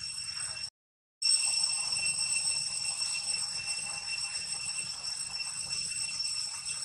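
Steady high-pitched insect drone, a continuous whine holding a few fixed pitches. The sound cuts out completely for about half a second about a second in.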